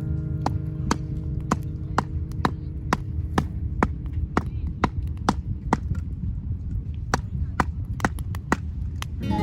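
Background music: a steady clicking beat about twice a second over held low notes, without the guitar.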